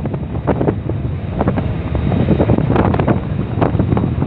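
Wind buffeting the microphone in uneven gusts on the open deck of a ship, with a dense low rumble underneath.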